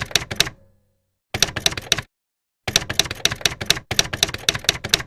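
Rapid typewriter key clacking, several strokes a second, in three runs broken by short silent gaps.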